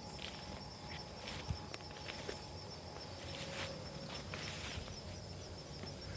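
Insects trilling steadily with a high, fast pulsing, while a few scattered, irregular footsteps crunch on the ground.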